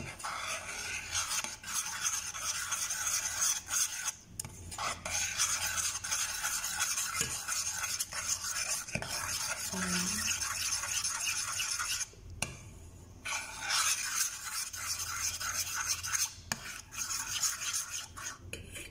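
A spoon stirring a thick mixture of cacao powder and hot coffee round a stainless steel saucepan, scraping steadily against the pan's base and sides. The stirring breaks off briefly about four seconds in and again for a moment around two-thirds of the way through.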